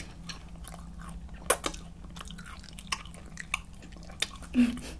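Close-miked ASMR eating: a person chewing food, with several sharp wet mouth clicks and a louder one near the end.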